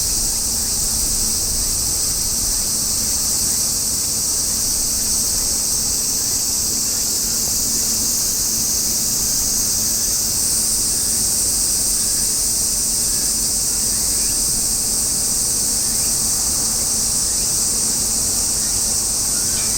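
Chorus of cicadas, a continuous high-pitched buzzing that holds steady throughout, over a low rumble.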